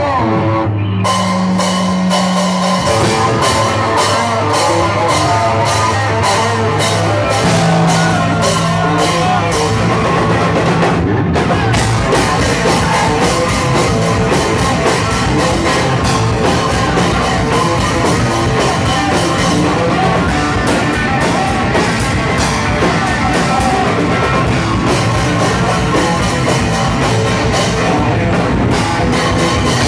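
Hardcore punk band playing live and loud: fast drum kit with distorted guitar and bass. Held low notes open it, the drums come in about a second in, and they drop out briefly about eleven seconds in.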